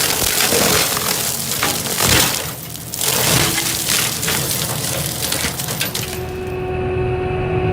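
Machinery crushing and breaking up wood, with dense cracking and splintering. The sound changes abruptly about three and six seconds in, and near the end gives way to a steadier machine hum.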